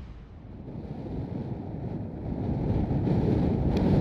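Wind buffeting the microphone: a low, even noise that grows steadily louder.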